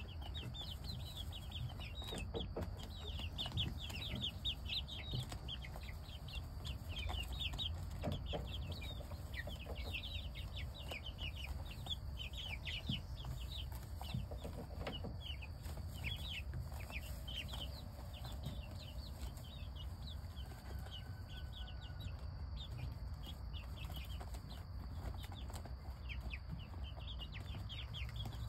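A flock of young chickens peeping continuously while they feed, many short, high, falling peeps overlapping, over a steady low hum.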